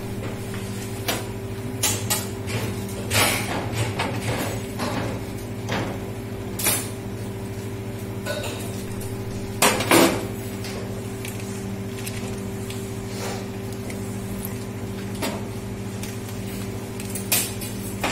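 Scattered clanks and knocks of a steel cooking pot and utensils on a gas range's metal grate, the loudest pair about ten seconds in as the pot is taken by its handle, over a steady mechanical hum.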